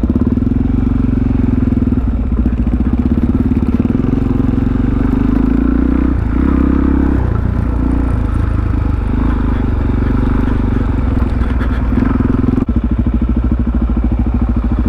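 Supermoto motorcycle engine running, its revs shifting up and down. About three-quarters of the way through the sound changes abruptly to an even, lumpy idle.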